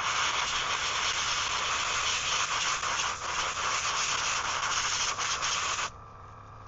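Airbrush spraying paint: a steady hiss of air that cuts off sharply near the end.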